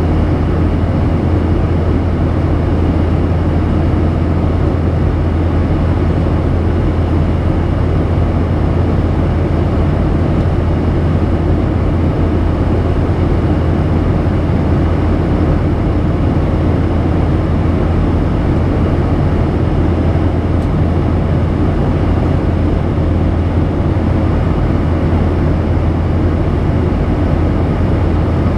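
Steady in-flight cabin noise of a Boeing 737-800, heard from a window seat over the wing: the CFM56 turbofan engines and rushing airflow make a constant deep drone with a rushing hiss over it.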